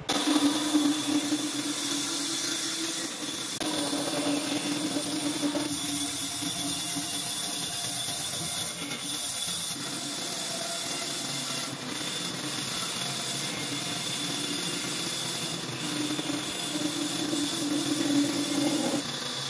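Band saw running and cutting through a long wooden board, a steady hiss with a constant hum and a thin high whine, the hum growing and fading as the board is fed into the blade.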